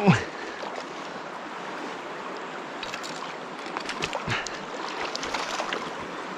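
Mountain river current rushing steadily over a riffle, with a brief falling vocal sound right at the start and a few faint ticks.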